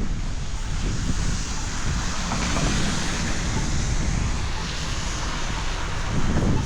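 Wind buffeting the microphone over steady street traffic noise.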